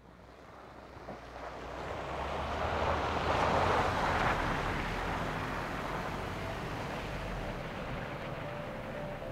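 A Jeep driving past on a snow-covered road: a rushing tyre-and-engine noise that grows to its loudest about three to four seconds in, then eases as the Jeep moves away, over a low engine rumble.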